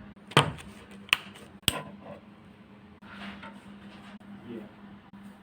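Three sharp knocks of hard objects being handled, in the first two seconds, then softer handling noise over a steady low hum.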